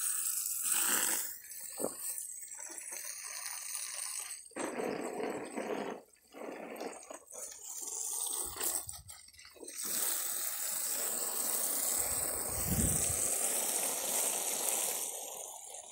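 Water pouring and splashing onto plants while they are watered. The flow breaks off briefly twice, then runs fairly steadily for several seconds.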